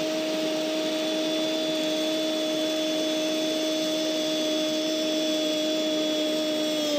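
Spanish-language football commentator's long goal cry, "Goooool", held on one steady pitch over the stadium crowd noise, falling off near the end.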